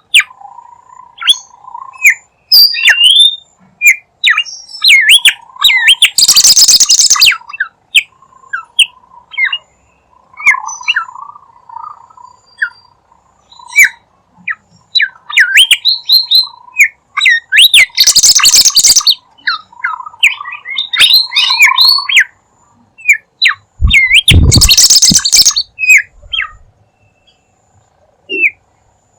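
Bimoli songbird in full song: a fast run of short, sharp chirps and whistled notes with a lower burbling warble, broken three times by loud harsh rasping calls.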